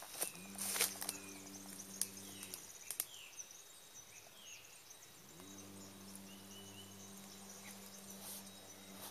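A low motor hum that spins up quickly in pitch and runs steadily for about two seconds, then stops. About five seconds in it spins up the same way again and keeps running. Short high chirps and a few light clicks come over it near the start.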